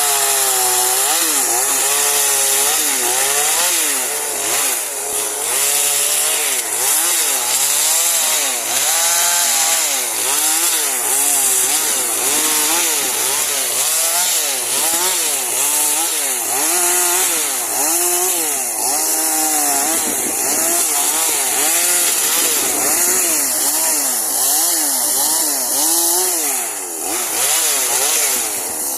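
Two-stroke chainsaw cutting pine limbs, its engine pitch rising and falling over and over as the throttle is worked and the chain bites into the wood.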